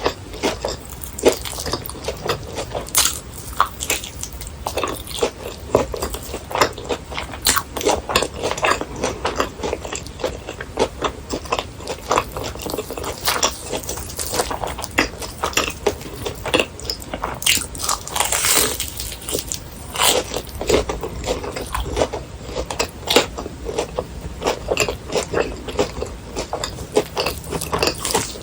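Close-miked crunchy biting and chewing of crisp fried snacks, with irregular crackling crunches throughout.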